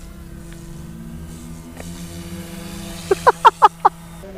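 OMP Hobby M2 EVO 3D RC helicopter in flight, its rotor and motor giving a steady buzzing hum. About three seconds in comes a quick run of five short, high-pitched chirps, the loudest sound.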